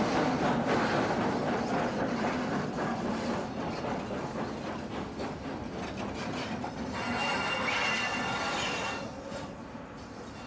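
Steam-hauled passenger train rolling past close by on a curve, carriages clattering over the rail joints. A high wheel squeal sets in about seven seconds in and lasts a couple of seconds, and the sound drops away near the end as the train moves off.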